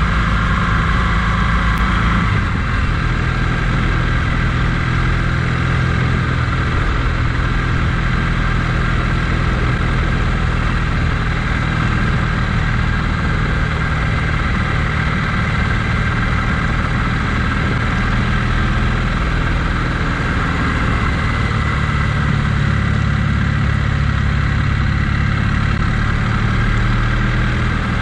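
A vehicle's engine running steadily on the move, with a constant hiss over the low engine drone. The engine note changes about two seconds in.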